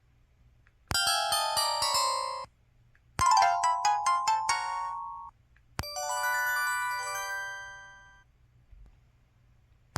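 PT-K2100 phone playing its built-in electronic ringtones: three short melodies one after another, each lasting about two seconds, with short silences between them.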